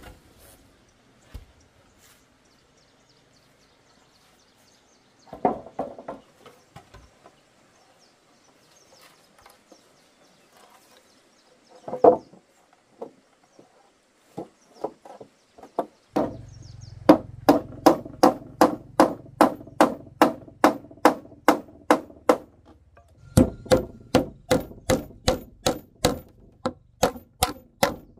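A rapid, even series of chopping blows on wood, about two to three a second, starting about halfway through after a few scattered knocks and pausing briefly near three quarters of the way. A low hum sits under the first run of blows.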